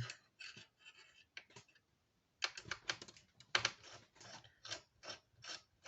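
Light, sharp clicks of a screwdriver turning the screws of a desktop PC's CPU cooler, in a loose run of two to three clicks a second after a short pause.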